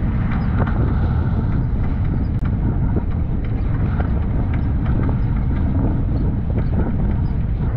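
Fishing boat's engine running steadily while trolling, with wind buffeting the microphone.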